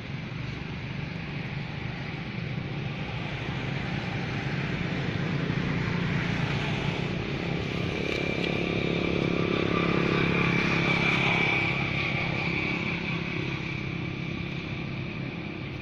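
Motor vehicle engine running nearby: a steady low hum that grows louder over several seconds, peaks with a high whine in the middle, and eases off near the end, as of a vehicle passing.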